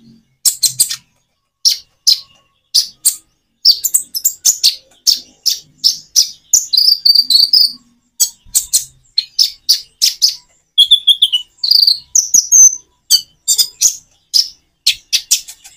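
Kolibri ninja (konin), a small sunbird, singing loud, rapid runs of short, high-pitched chirps and trills, broken by brief natural pauses about a second in, near two seconds, and around eight seconds.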